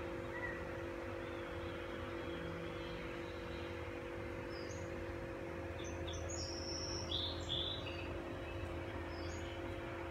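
A steady hum over a background hiss, with a few short, high chirps in the middle.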